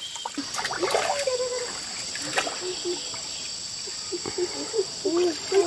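Water trickling with small scattered splashes as hands grope through a shallow stream pool for fish.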